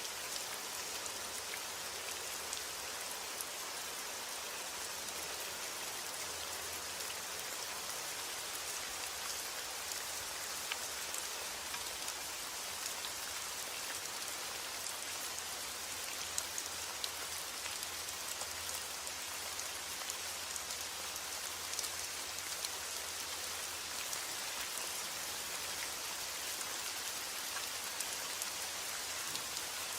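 Heavy rain falling steadily, a dense even hiss with scattered individual drops ticking through it.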